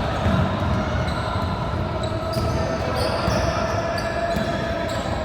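Basketball bouncing on a gym court during play, over the steady background hum of the hall.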